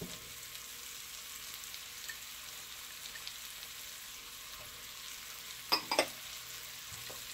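Onions and sliced mushrooms sizzling in butter and oil in a pan over medium-high heat: a steady frying hiss. Two light knocks come close together near the end.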